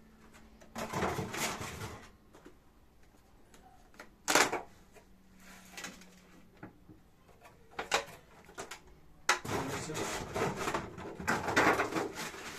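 Bag of coconut coir substrate rustling and crackling as it is handled and emptied, in bursts, with a sharp snap about four seconds in and a longer stretch of rustling near the end.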